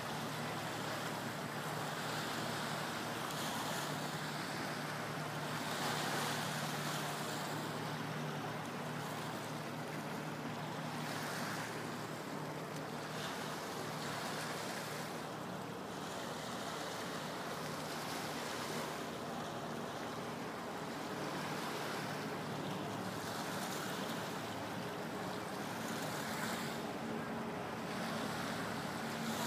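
Lake water washing against the shore in irregular swells every few seconds, with wind on the microphone and a steady low hum underneath.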